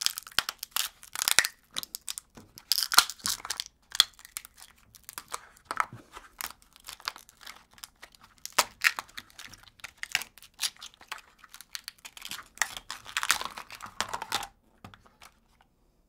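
Plastic ice cube tray being twisted by hand: a dense, irregular run of crackles and creaks as the plastic flexes and the frozen cubes crack loose from their cells. It thins to a few scattered clicks near the end.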